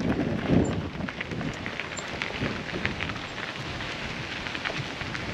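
Bicycle tyres rolling over a loose gravel path: a steady crackle and crunch of small stones. Wind buffets the microphone in the first second or so.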